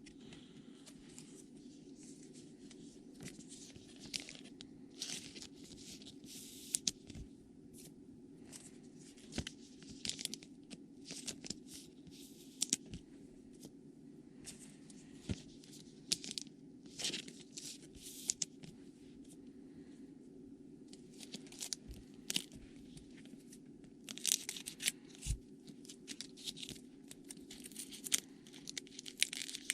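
Trading cards being handled and flipped through, with short scattered rustles, scrapes and crinkles of card stock and pack wrapper, busier near the end.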